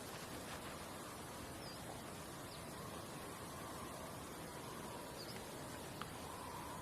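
Outdoor nature ambience: a steady hiss with a faint insect-like drone, a few short, faint bird chirps, and a single click about six seconds in.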